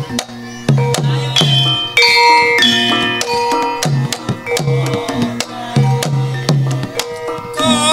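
Javanese gamelan playing an instrumental passage: bronze metallophones and kettle gongs strike a ringing, stepwise melody over the low, pitch-bending strokes of a hand drum.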